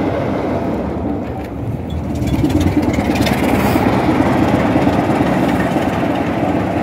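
Class 26 diesel locomotive's Sulzer six-cylinder engine running steadily as it hauls its train past.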